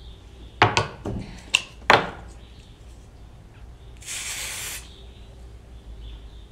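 A few sharp knocks and clicks from handling, then one short hissing burst of an aerosol wig-adhesive spray, about two-thirds of a second long, around four seconds in.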